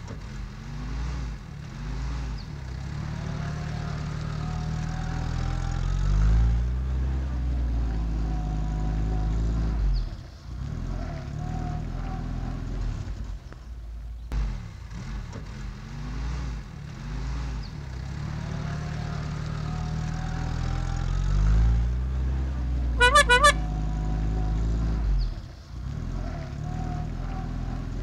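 Car engine sound effect running and revving for an animated toy car, the same stretch of engine sound repeating about halfway through. Near the end a horn gives about three quick beeps.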